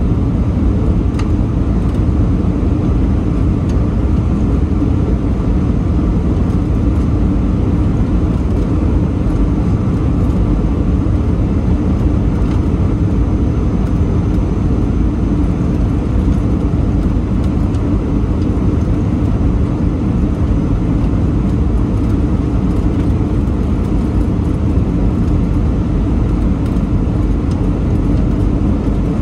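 Steady cabin noise inside an Airbus A319 airliner: an even, low rumble of engines and airflow with no change in level.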